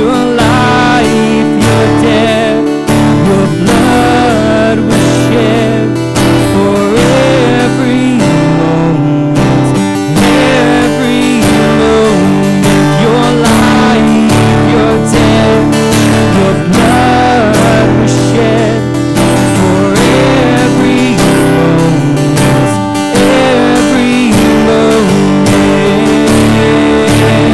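Acoustic guitar strummed, with a man singing a worship song over it.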